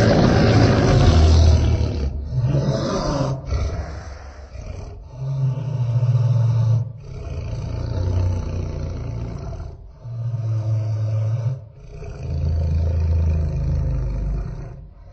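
Godzilla roar sound effect: a loud roar bursts in at the start, followed by a series of deep, low rumbling pulses each a second or two long.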